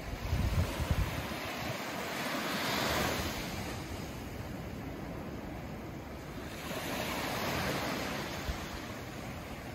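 Small waves breaking and washing up a sandy beach, coming in two slow rising-and-falling surges about four seconds apart. Low gusts of wind rumble on the microphone in the first second.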